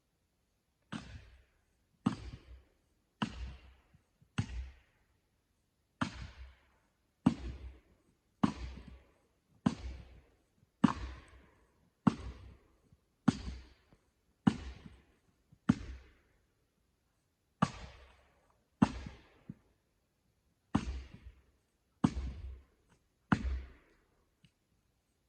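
Heavy blows of an axe or splitting maul into knotty tamarack firewood rounds, about nineteen sharp cracking strikes roughly a second apart with a couple of brief pauses. The knots are making the wood hard to split.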